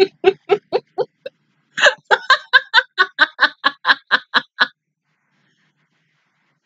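A woman laughing in quick repeated bursts, about five a second: a short run, a brief pause about a second and a half in, then a longer run.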